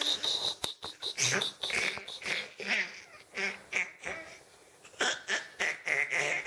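A baby laughing and squealing in short, quick bursts, with a brief lull about two-thirds of the way through.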